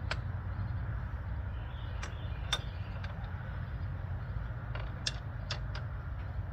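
About half a dozen scattered light clicks and taps of hand tools working a fuel line fitting under a car, over a steady low rumble.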